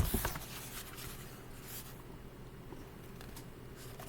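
Paper rustling and soft handling clicks as a book is held and its pages handled, loudest right at the start, over a low steady hum.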